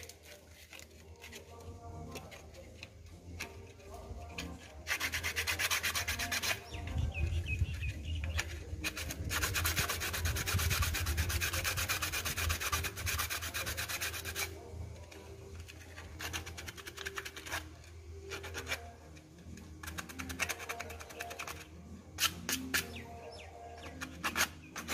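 Hand-sanding a piece of PVC pipe with sandpaper: fast, scratchy back-and-forth rubbing in spells, the longest and loudest in the middle, then shorter bouts near the end.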